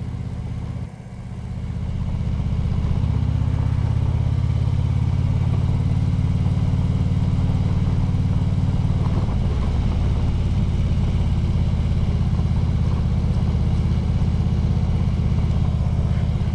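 Harley-Davidson FLHTK Ultra Limited's V-twin engine under way: a brief drop about a second in, then it picks up and runs steadily at road speed.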